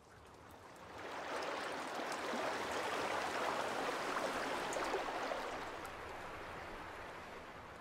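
Rushing spring meltwater churning over rocks, a steady wash of water noise that swells about a second in and eases off near the end.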